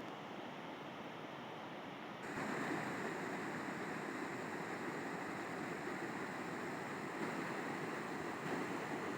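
River water flowing and rushing in a steady hiss, which jumps a little louder and brighter a couple of seconds in.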